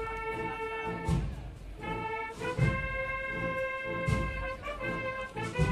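Procession brass band playing a slow Holy Week march: long held brass chords over a bass drum beat that falls about every second and a half.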